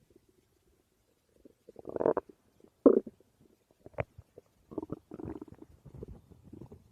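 Human stomach growling: after a quiet second and a half, a series of irregular short gurgles and rumbles, the loudest a brief one about three seconds in, then a longer stretch of gurgling near the end.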